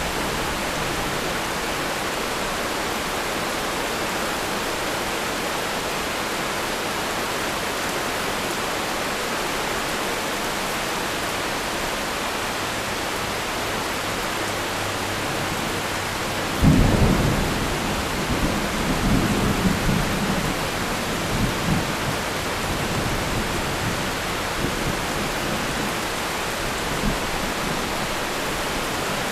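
Steady heavy rain hissing, with one sudden thunderclap more than halfway through that rumbles on for a few seconds and fades.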